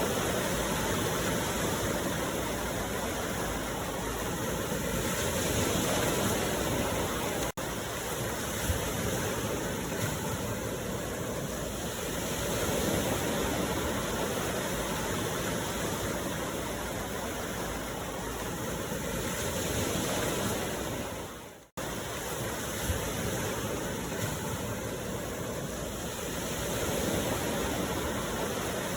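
Ocean waves washing on a shore: a steady rush of surf that swells and eases about every seven seconds. The sound cuts out for an instant twice, about a quarter of the way in and about three quarters of the way in.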